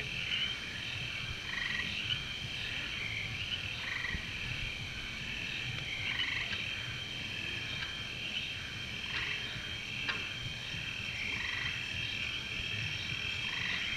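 Frogs croaking: short calls repeat irregularly, about once a second, over a steady high-pitched background.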